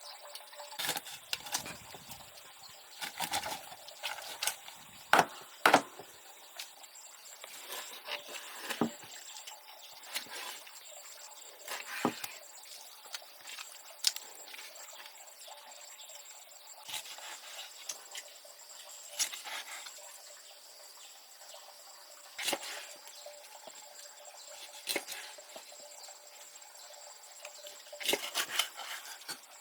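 Irregular knocks and taps of wood being handled and worked, the two loudest knocks about five seconds in.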